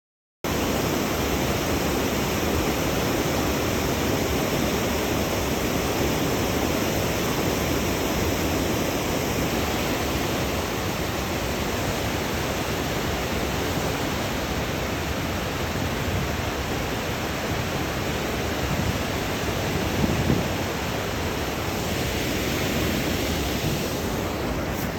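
Steady rushing of river water, starting suddenly about half a second in.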